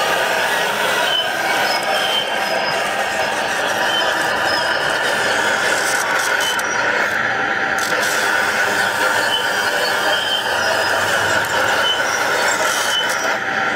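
Radio-controlled Liebherr 944 Litronic model excavator working its boom and bucket, its drive running with a steady mechanical whine and squeal.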